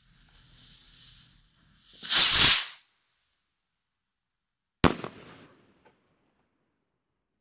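A firework stick rocket's fuse hisses, then about two seconds in the rocket launches with a loud whoosh lasting under a second. About two seconds later it bursts with a single sharp bang that echoes away, followed by a faint pop.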